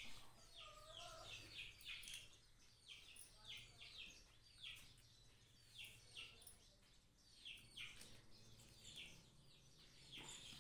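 Faint bird chirps: short high notes falling in pitch, in quick runs of two to four, over a faint low hum.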